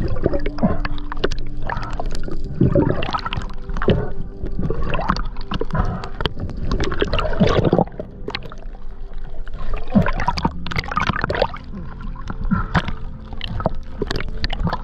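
Underwater gurgling and sloshing of water and bubbles against a camera's housing, coming in uneven gushes every second or two, over a steady low hum.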